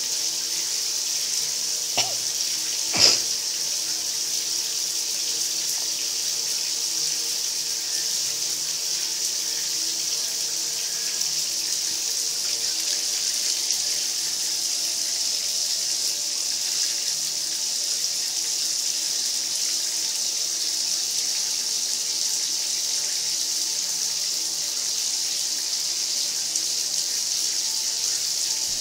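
Bathtub faucet running a steady stream into the tub, an even hiss. Two sharp knocks about a second apart near the start, the second louder.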